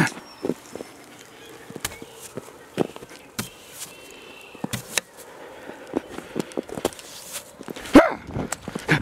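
Hurried footsteps crunching in snow, with scattered irregular knocks and rustles. A single short, loud cry comes about eight seconds in.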